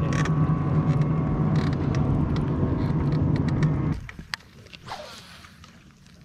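A boat motor runs with a steady low hum and cuts off suddenly about four seconds in. After that it is quiet apart from a few faint clicks.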